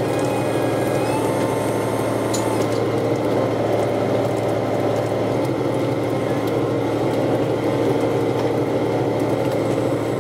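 Steady mechanical hum of a sardine fishing boat's engine and machinery running, with a few faint clicks over it.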